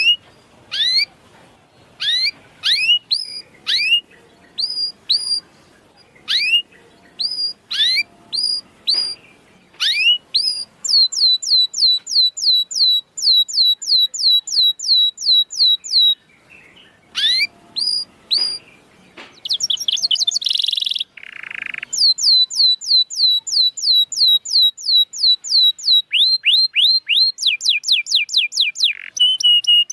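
Canary singing: separate down-slurred whistled chirps, then long fast runs of the same chirps repeated several times a second, broken about two-thirds through by a short harsh rasp.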